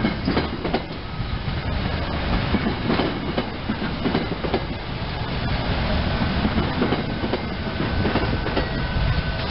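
SEPTA Silverliner electric multiple-unit cars rolling past close by: a steady low rumble of wheels on rail with sharp clacks as the wheels cross rail joints. A thin steady whine joins in during the second half.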